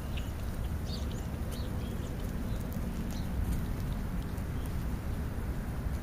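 Black vulture stepping and pecking at food right beside the microphone: scattered light taps and clicks over a steady low rumble.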